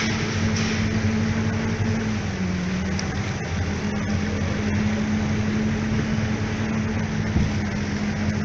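Motorboat engine running steadily with a low drone over a rush of noise; its pitch dips briefly about two seconds in, then comes back up.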